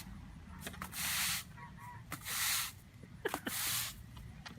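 Three short hisses, each about half a second long and roughly a second apart, with a few faint clicks between them.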